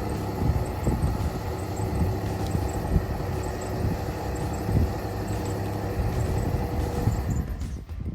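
Car engine running steadily, with wind rumbling on the microphone. The sound drops away sharply near the end.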